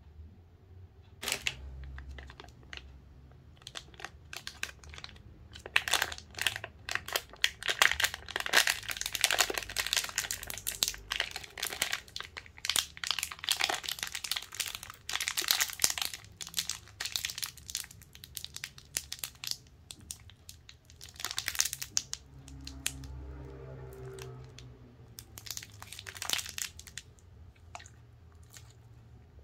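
A twist-ended plastic snack wrapper crinkling and crackling as it is twisted and pulled open by hand, in irregular bursts with short pauses, busiest in the middle.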